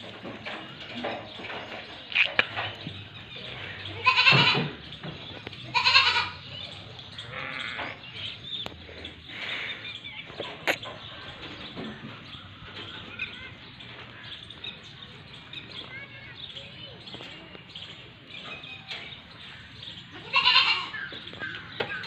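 Pathira-breed goat bleating: two short, loud bleats about four and six seconds in, and another near the end. A single sharp click comes about halfway through.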